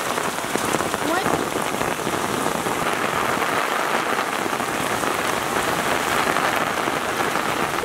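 Heavy rain falling steadily on floodwater, a dense even hiss.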